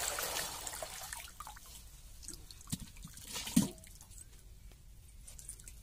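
Palm sap poured through a plastic strainer into a wide pan: the stream splashes for about the first second, then tapers off to scattered drips. A sharp knock comes about three and a half seconds in.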